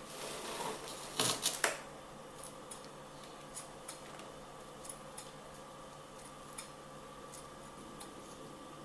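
Pruning shears cutting twigs and pine cones off a young Scots pine bonsai: a short rustle, then two sharp snips about a second in, followed by scattered faint clicks.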